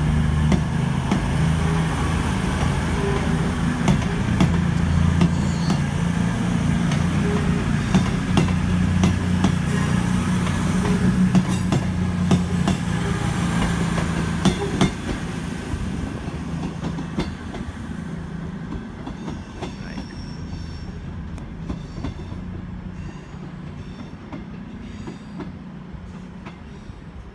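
CrossCountry Voyager diesel multiple unit pulling away: its underfloor diesel engines hum steadily, with wheels clicking over the rail joints. The sound fades from about halfway through as the train draws away.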